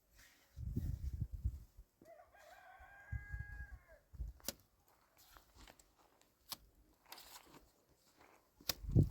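A rooster crowing once, a single call of about two seconds held level and then dropping at the end. Around it come bouts of low rumbling and a few sharp clicks, the loudest near the end.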